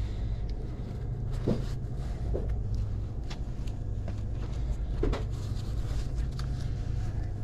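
A steady low rumble with a few light knocks and soft fabric rustles as a pair of fabric work gloves is handled and pulled on.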